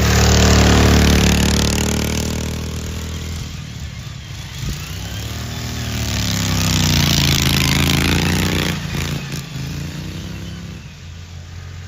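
Racing ride-on lawnmower engines running flat out and passing close by twice: once about a second in, and again around two-thirds of the way through, where the pitch dips and climbs as the revs change. The sound fades away near the end.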